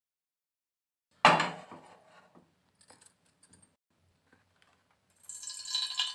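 A steel saucepan is set down on a gas stove's metal grate with one loud clank about a second in, followed by a few light ticks. Near the end, hot oil starts sizzling and crackling in the pan.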